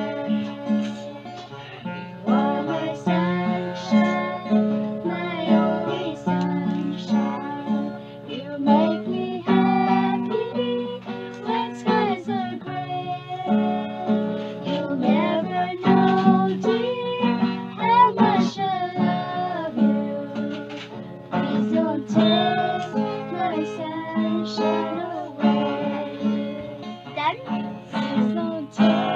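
A woman and a girl singing a song together to a strummed small acoustic guitar, in a steady rhythm.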